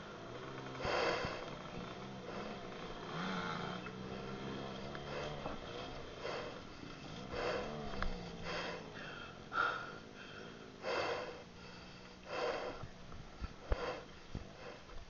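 Heavy panting, loud breaths coming about every second or so, from exertion on a steep trail. A motorcycle engine runs steadily at low revs beneath them for the first few seconds and again around the middle.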